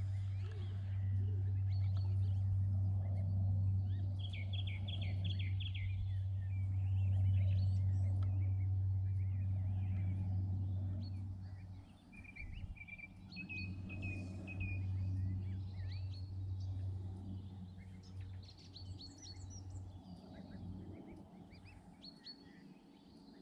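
Wild songbirds chirping and singing in short calls and trills, including a rapid run of notes about four seconds in, over a steady low hum that drops out about halfway through, returns, and fades away near the end.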